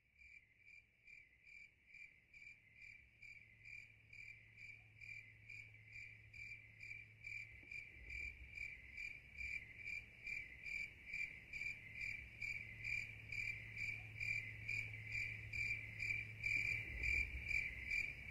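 Crickets chirping in an even, steady rhythm of about two to three chirps a second, fading up from near silence to a faint level, over a faint low hum.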